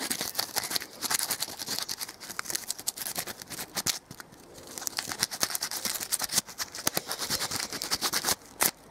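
Sandpaper rubbed by hand along a painted wrought iron bar: quick, irregular rasping strokes, with a few sharper ones near the end. The old gloss paint is being sanded back to give the undercoat a key.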